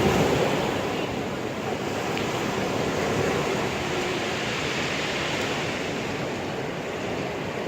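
Ocean surf breaking and washing up the beach, a continuous rush that is loudest at the start and then evens out.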